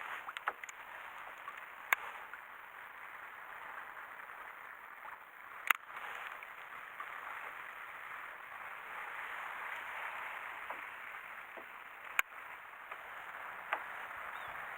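Sea water lapping and sloshing against a kayak's hull as a steady wash, with three sharp clicks or knocks spread through it.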